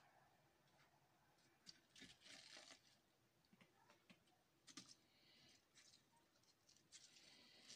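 Faint rustling and light handling of soured cabbage leaves as they are taken from a bowl and packed into a clay pot, in a few brief spells about two seconds in, near five seconds and near the end.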